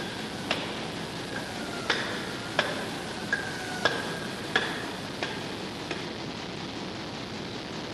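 Hand hammer striking a wooden block set on an exhaust valve part in a steel overhaul fixture, about eight blows roughly two-thirds of a second apart, ending about six seconds in. Several blows leave a short metallic ring.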